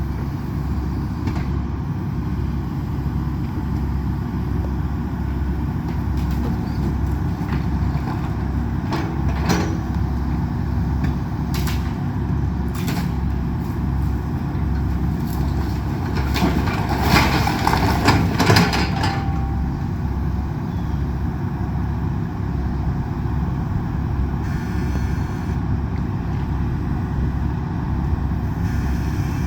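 Excavator's diesel engine running steadily, with scattered sharp cracks of breaking wood and debris. From about 16 to 19 s in, a longer, louder crunching comes as the excavator tears through the house.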